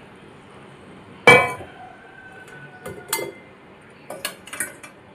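Kitchen utensils clinking: one loud, ringing clink about a second in, then a few lighter clinks and taps.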